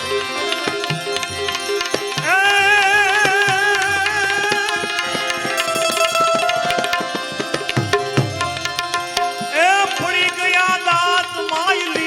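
Devotional folk bhajan music with tabla drumming. A sustained melody line twice slides up into long, wavering held notes, about two seconds in and again near the end.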